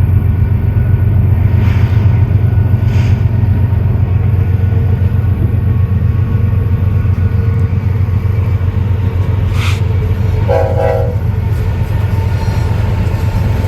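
Train rolling past with a steady heavy low rumble, and a short horn-like blast of several pitched tones about ten seconds in.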